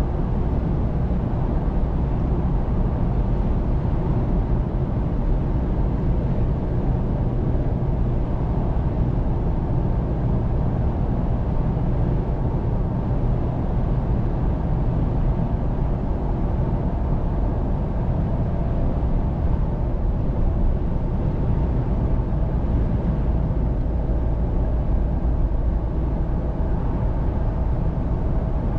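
Steady cabin noise of a 2023 Chevrolet Colorado ZR2 pickup cruising at highway speed: tyre and road roar with engine hum, heaviest in the low end.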